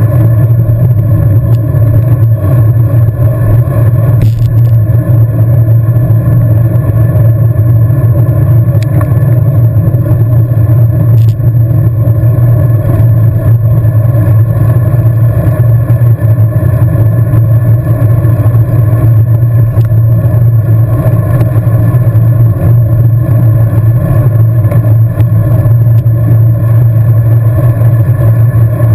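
Steady, loud rumble of wind and road noise on a bicycle-mounted camera's microphone while riding at racing speed, with a few faint clicks.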